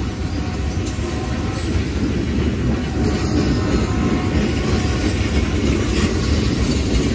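Rock train's open-top aggregate cars rolling past close by, a steady, mostly low wheel-on-rail noise that grows a little louder about two seconds in.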